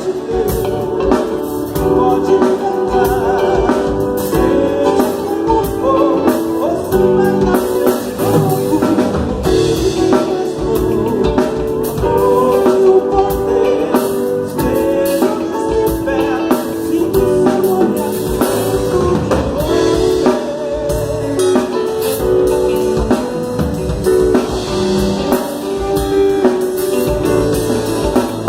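Live worship band running through a song during a sound check: singing over a drum kit and other instruments.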